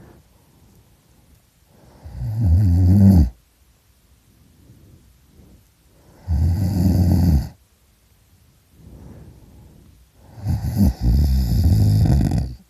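A man snoring extremely loudly in his sleep: three long snores about four seconds apart, the last the longest, with fainter breathing between them.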